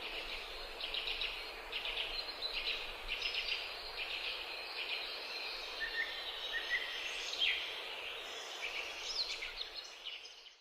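Birds chirping and trilling in quick, repeated short calls over a steady background hiss, fading out at the very end.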